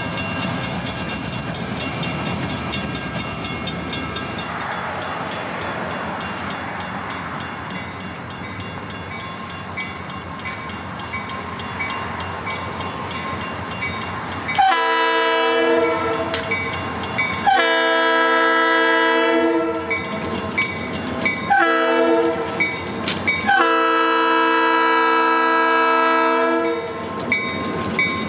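Horn of an approaching diesel freight locomotive, likely an EMD GP40, sounding the grade-crossing signal: two long blasts, one short, then a final long one. It blows over the rumble of the oncoming train, and a crossing bell dings at a steady beat.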